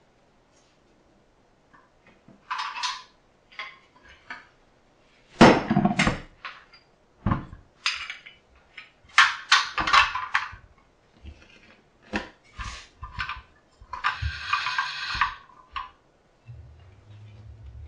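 All-metal hand-crank pasta machine being set down on a board and its crank handle fitted: a string of sharp metal clanks and knocks, with a longer scraping rattle about fourteen seconds in.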